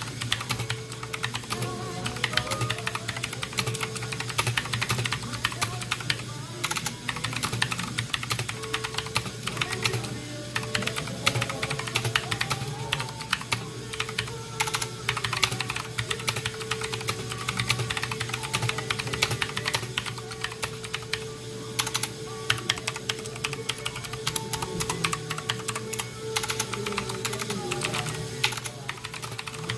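Continuous fast typing on a Rakk Kimat XT.2 mechanical keyboard with clicky Gateron Blue switches, a dense stream of key clicks, picked up by a phone's built-in microphone.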